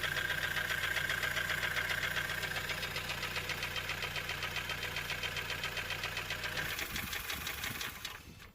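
Honda CR-V's K20A4 2.0-litre four-cylinder engine running with a rapid, even knocking tick over a steady hum. The owner suspects the knock comes from a wobbling harmonic balancer (crankshaft pulley). The hum drops away near the end.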